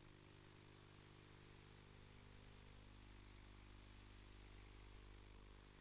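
A faint, steady low hum made of several even tones, under a constant hiss.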